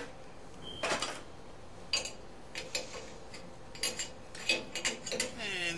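Small metal parts clinking and clicking in irregular, separate taps as the retaining clip that holds the cartridge is fitted into a single-handle tub and shower valve.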